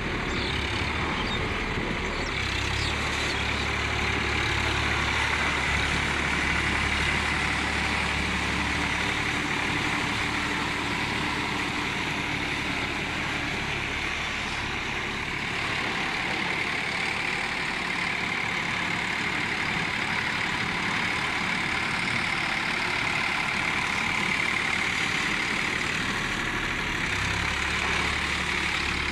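Sonalika tractor's diesel engine running steadily under load as it pulls a rotavator through a flooded paddy field. Its low hum is heavier near the start and again near the end, weaker in the middle as the tractor moves farther off.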